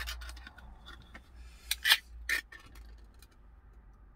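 Easy-open tuna can being opened by its ring-pull: a sharp click, then a few loud metallic clicks and a short scraping tear at about two seconds in as the lid peels back.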